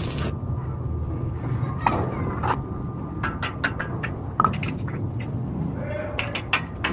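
Electric arc welding crackles for a moment at the very start and stops, leaving a steady low hum broken by scattered sharp clicks and knocks.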